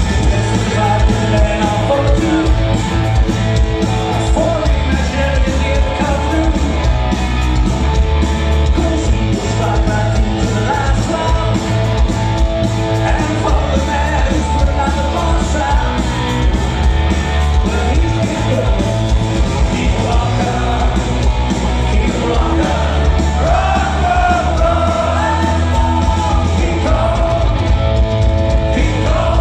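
A rock band playing live and loud, a singer singing over the band's steady bass and drums.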